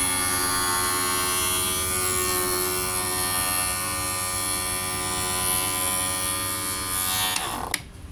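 Optical lens grooving machine running with a steady electric motor hum as it cuts a groove into a lens edge for a nylon-string semi-rimless frame. Near the end the motor is switched off and winds down with a falling pitch, followed by a sharp click.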